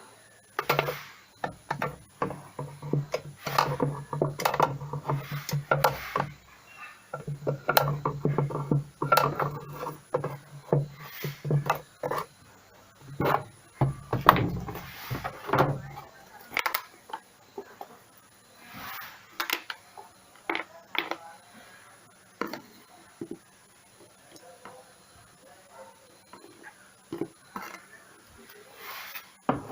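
Metal tools and parts knocking and clinking at irregular intervals as a washing machine's pulley and nut are fitted and tightened. A low hum comes in two stretches of several seconds in the first half.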